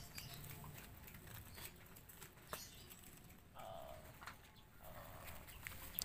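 Quiet outdoor background with two brief, soft rustles a little past the middle and a few faint ticks.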